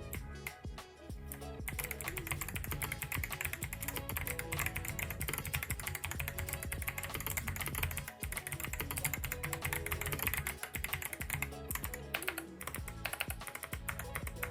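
Typing on unlubricated Kailh Box clicky switches with click bars, in an AK-820 keyboard with thick PBT keycaps: rapid crisp clicks, dense from about two seconds in and thinning out near the end, over background music.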